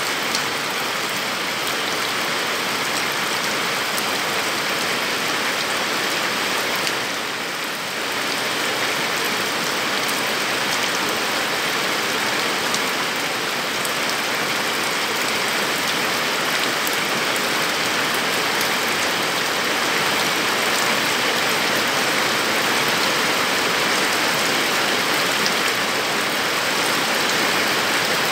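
Heavy rain falling steadily in a dense, even hiss, briefly a little softer about seven seconds in.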